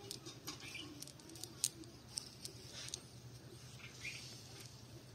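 A cast net full of catch being handled on grass: an irregular patter of light, sharp taps and rustles, with a couple of short chirps about four seconds in.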